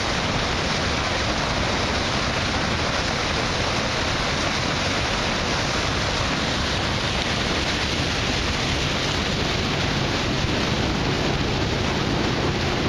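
Steady rush of water churned into splashing spray alongside a moving boat's hull, with a low hum beneath.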